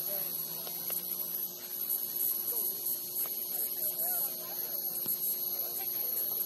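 Steady electrical hum with a high, steady whine above it, and faint distant voices underneath.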